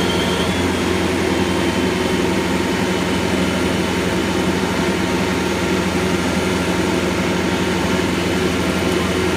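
Engine of a helical pier installation machine running at a steady, constant speed while it drives a helical pier into the ground.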